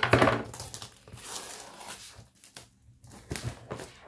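Clear plastic shrink-wrap film being torn and pulled off a long cardboard box, crinkling and rustling in irregular bursts with small clicks, loudest near the start.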